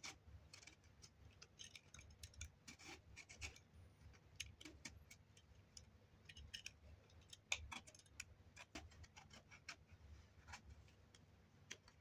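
Metal vegetable peeler scraping the skin off an eggplant: faint, irregular short scrapes and clicks, one stroke after another.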